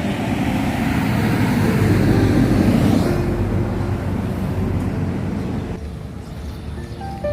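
A vehicle passing close by: a rushing noise that builds over the first few seconds and fades away after about five seconds.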